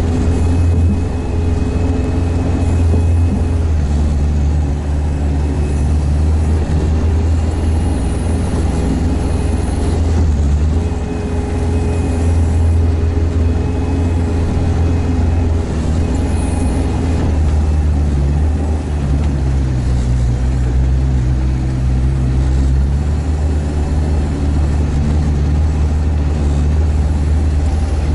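Diesel engine of a Sherp all-terrain vehicle running steadily while under way, its pitch shifting slightly a few times.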